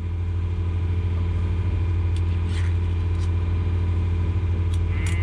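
Sailboat's engine running steadily with a low, even hum. A few light clicks and taps from a tin of cat food and a plastic lid being handled sit on top of it.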